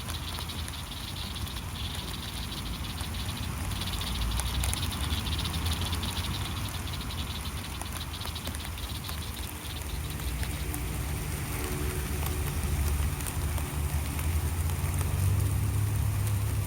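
Steady light rain pattering, with frogs trilling in a high, pulsing chorus that fades out about ten seconds in. From then on a vehicle engine's low hum comes in and grows louder.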